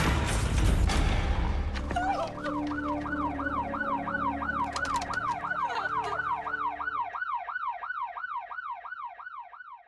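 Loud noisy rush with sharp clicks, then from about two seconds in a police siren in a fast yelp, its pitch swinging up and down about two and a half times a second, fading away near the end.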